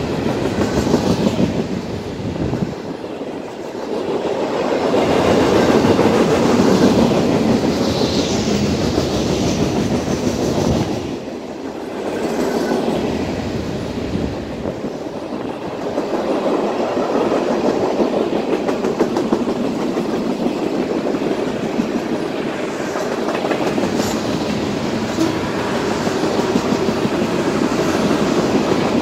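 Freight cars (boxcars, covered hoppers and tank cars) rolling past on steel wheels: a steady rumble with clickety-clack from the wheels on the rails. It swells and eases as the cars go by, with a brief lull about eleven seconds in.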